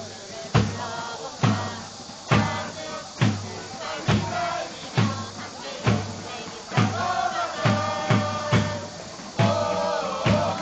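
Football supporters chanting in unison to a steady bass drum beat, a little faster than one beat a second. The singing gets louder in the last few seconds.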